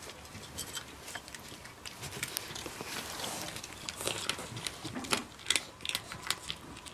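Cat crunching dry kibble from its bowl: a run of sharp crunches, sparse at first, then more frequent and louder in the second half.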